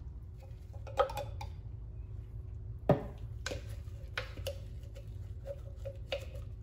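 Chopped garlic being shaken out of a plastic food processor bowl over a stainless steel mixing bowl: a string of light, uneven knocks and taps, with one sharp knock about three seconds in.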